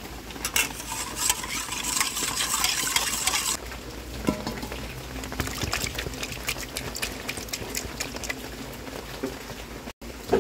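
Turmeric-and-salt water boiling in a pot, a dense crackling bubble for about the first three and a half seconds. Then comes the quieter wet squelching and clicking of hands handling boiled beef tripe in the yellow liquid.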